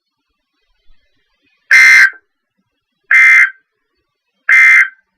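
NOAA Weather Radio EAS end-of-message signal: three short SAME data bursts, each under half a second and about a second and a half apart, marking the end of the broadcast test message.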